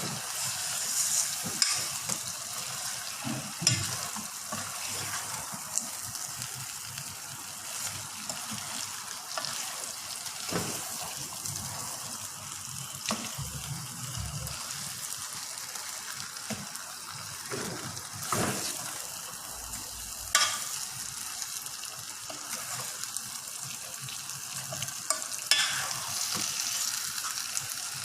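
Food sizzling as it fries in a pan, with a steady hiss. It is being stirred, and knocks sound now and then against the pan.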